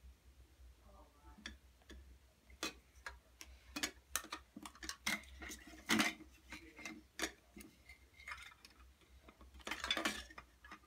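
Plastic toy pots, lids and dishes from a toy kitchen set being handled, making irregular light clicks and knocks, with louder clatters about six seconds in and near the end.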